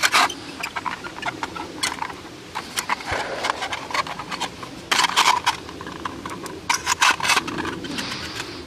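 Thin aluminium sheet, rolled into a cylinder and pinned with wire, being handled and turned in the hands: irregular crinkling clicks and crackles, in clusters near the start, about five seconds in and about seven seconds in.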